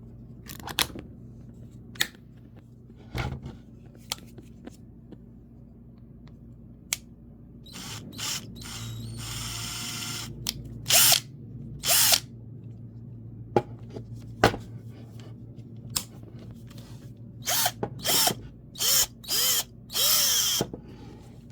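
Hyper Tough 12 V cordless drill running with its keyless chuck attachment fitted: one short run near the middle, then a string of brief trigger pulls near the end, with scattered handling clicks between.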